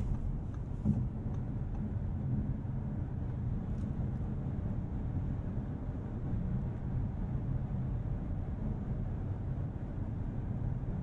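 Steady, low in-cabin drone of a 2022 Audi S8 L cruising at highway speed: tyre and road noise with a faint hum from its 4.0-litre twin-turbo V8.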